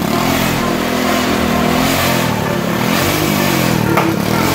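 A small 3 hp Briggs & Stratton engine fitted with a small Mercedes turbocharger, running and revving up and down several times.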